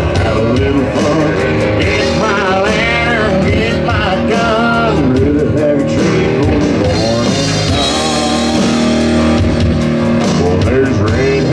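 Live country-rock band playing amplified through a PA: drums with a steady cymbal beat, bass, and acoustic and electric guitars.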